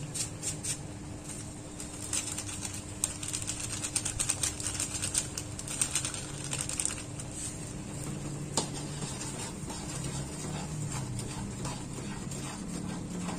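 A metal spatula clicking and scraping in a wok of red chili spice paste while a plastic sachet of stock powder crinkles as it is torn and shaken over the pan. The clicks come thick and fast in the first seven seconds, with one sharper knock about two-thirds through.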